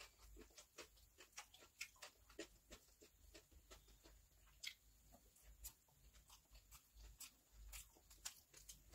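Faint, irregular wet clicks and smacks of someone chewing a mouthful of rice, with fingers squishing biryani on a steel plate.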